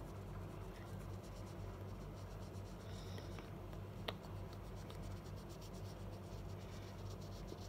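Felt-tip marker rubbing over a velvet colouring sheet, a faint soft scratching as green is blended into the tree, with one small click about four seconds in. A steady low hum runs underneath.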